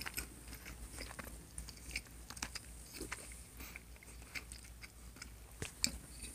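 A person chewing a mouthful of chicken and rice close to the microphone, with many small irregular mouth clicks.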